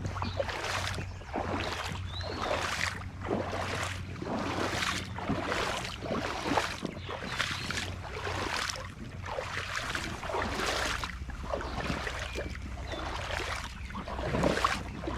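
Rubber boots wading through shallow creek water, a sloshing swish with each stride, a little over one step a second.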